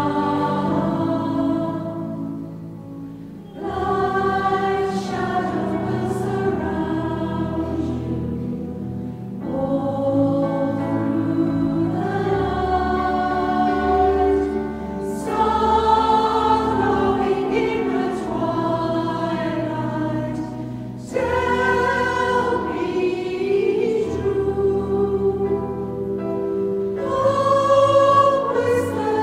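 A choir singing a Christmas carol in phrases, with a brief break between phrases about three seconds in and a few shorter ones later.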